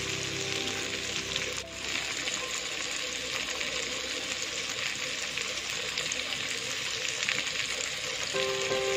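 Sliced onion, tomato and green chilli sizzling steadily in hot oil in a nonstick wok, with faint music underneath.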